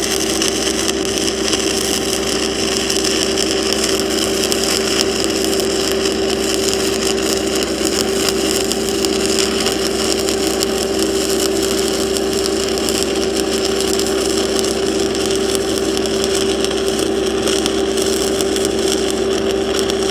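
Stick-welding arc crackling and hissing steadily as a cellulosic 6010/8010-type electrode burns downhill along a steel pipe joint, with a steady machine hum underneath.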